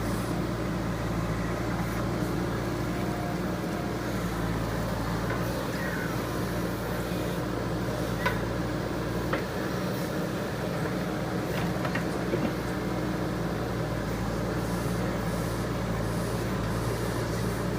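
JCB 3DX Super backhoe loader's diesel engine running at a steady pitch, with a few sharp knocks a little past the middle.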